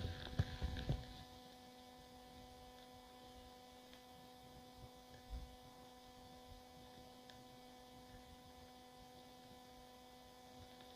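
Faint, steady electrical hum made of several even tones, with a few soft knocks and rustles in the first second.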